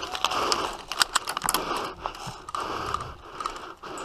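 Footsteps through grass with the clicking and rattle of carried gear and rifle, in uneven bursts about every half second.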